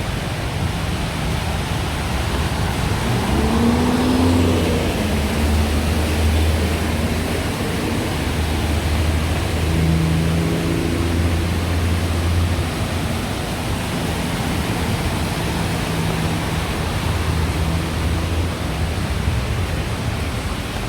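Steady hiss of water on a flooded city street, with vehicle engines running and passing in it. One engine rises and falls in pitch about 3 to 5 seconds in.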